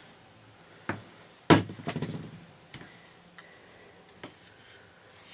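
Hard parts being handled during the teardown of an electric drill: a click, then a sharp clunk with a short rattle about a second and a half in, followed by a few light ticks.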